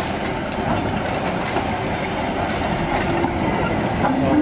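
Mixed goods train rolling slowly past at close range: open goods wagons and a carriage rumbling and rattling on the track, with a few faint wheel clicks over the rail joints.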